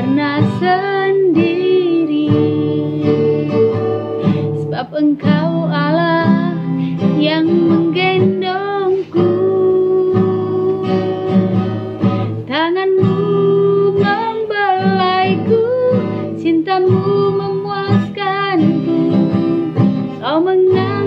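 Acoustic guitar strummed in steady chords, accompanying a woman singing a song with a wavering vibrato on held notes.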